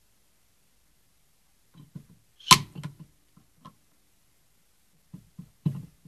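Clicks and knocks of expanding pliers working on an old distributor: a sharp metallic snap about two and a half seconds in among softer taps, and a few more knocks near the end.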